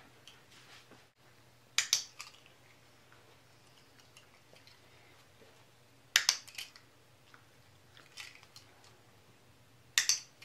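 A training clicker clicking three times, about four seconds apart, each a quick sharp double click.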